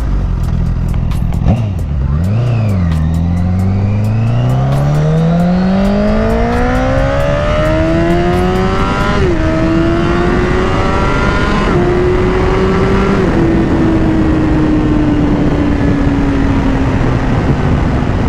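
Honda CBR1000RR inline-four sport bike engine accelerating hard. After a couple of quick throttle blips it pulls in one long rising rev run, then shifts up about halfway through and twice more soon after, and eases off with the pitch slowly falling near the end. Wind rushes over the microphone throughout. The engine is running clean after its misfire was fixed.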